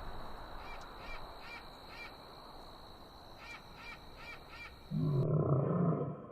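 Two runs of four short, high chirping calls over a background hiss and a steady high whine. About five seconds in, a loud, deep animal call abruptly takes over.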